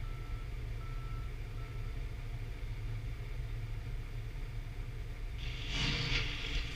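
Steady low outdoor rumble, with three short faint beeps in the first two seconds and a brief hiss about five and a half seconds in.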